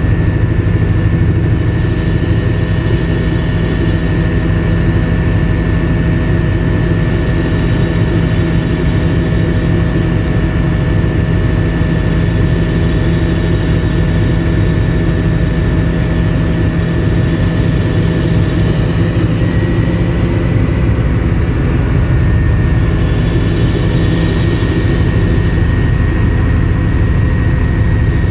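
Helicopter in flight, heard from inside the passenger cabin: loud, steady rotor and engine noise with a fast low beat and two steady whining tones, the higher one shifting slightly about twenty seconds in.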